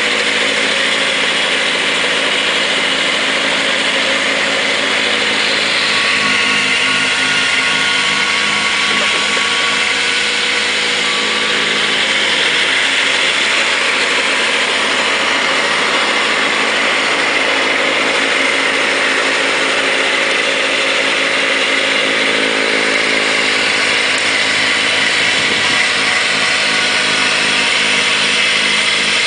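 Kubota B3030 compact tractor's three-cylinder diesel engine running steadily under load, driving a front-mounted snowblower, with the steady rushing hiss of the blower throwing snow over the engine note.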